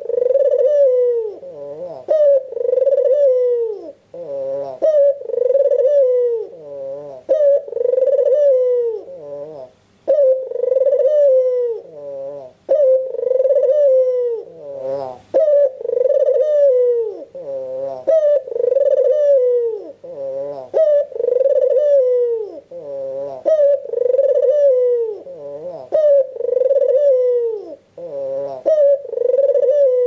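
An albino puter dove (a white, red-eyed domestic Barbary dove) cooing continuously, one coo after another, about one every two seconds.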